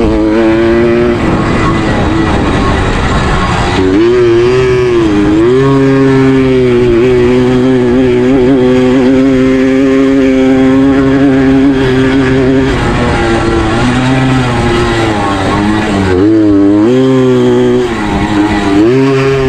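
Suzuki AX 100 two-stroke single-cylinder engine racing at full throttle. Its pitch drops and climbs again several times, with a long steady stretch at high revs in the middle.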